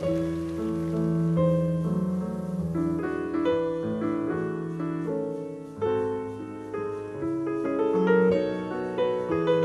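Steinway grand piano playing a classical piece solo, with a melody over sustained bass notes. A new chord is struck firmly about six seconds in.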